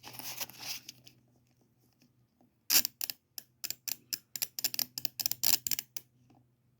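Small metal screwdriver bits clicking and rattling as they are picked through in a bit case to find a T10 Torx bit. A brief rustle first, then from about three seconds in a quick run of sharp, irregular clicks that stops shortly before the end.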